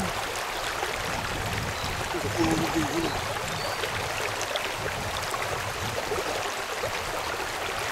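Shallow river water rushing steadily over a riffle, an even hiss of moving water. A brief faint voice comes in about two and a half seconds in.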